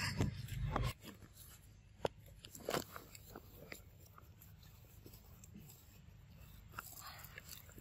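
Scattered soft clicks and smacks of a baby monkey chewing food, after a louder low sound that cuts off about a second in.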